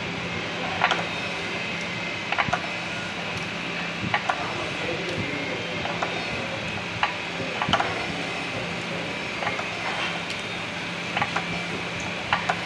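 Steady hum of diamond-polishing machinery running, with sharp metallic clicks every second or two as a steel polishing tang and its stone holder are handled and adjusted by hand.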